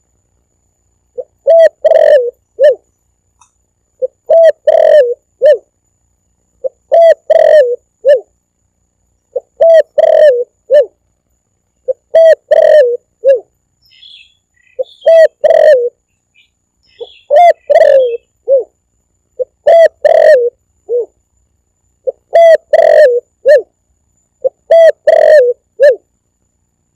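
Spotted dove (tekukur) cooing, the same short phrase of a few notes repeated about every two and a half seconds, played as a lure call to draw in doves. Faint higher chirps come in briefly about halfway through.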